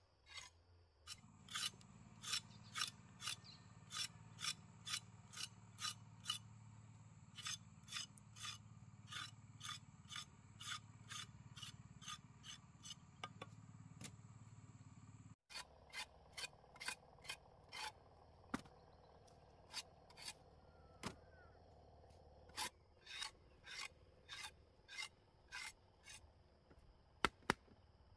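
Knife scraping the skin off a root in quick, even rasping strokes, about two a second, with a brief break about halfway through.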